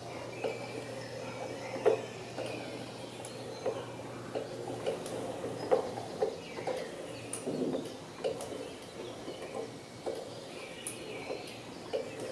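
Wooden gear mechanism of an owl automaton working as the owl's head turns: light, irregular clicks and knocks, about two a second.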